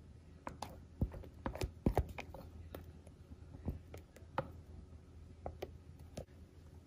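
Spatula scraping and tapping against a glass bowl while scooping thick whipped coffee: scattered soft clicks and knocks at an irregular pace, the loudest pair about two seconds in, over a low steady hum.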